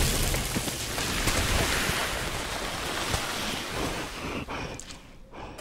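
The tail of a film explosion in sand: a dense rushing wash of noise with scattered small impacts of falling sand and debris, fading over about five seconds.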